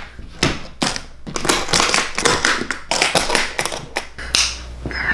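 Hands tapping and clicking on a leather-covered hardshell guitar case in a quick, irregular run of knocks, a few at first and then thick and fast through the middle.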